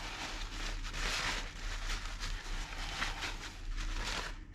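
Paper towel rustling and rubbing in a series of irregular scrapes as old grease is wiped off a brake caliper slide pin.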